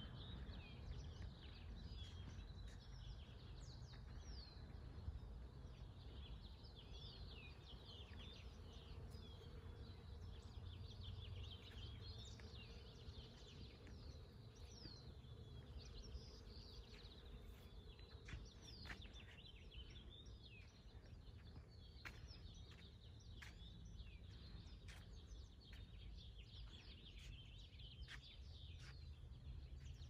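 Faint chorus of small songbirds chirping, many quick high chirps and short falling whistles, over a low steady rumble.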